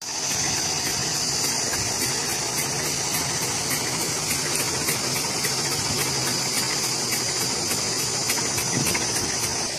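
Road roller's diesel engine running steadily, with a constant hiss and a light regular ticking about four times a second.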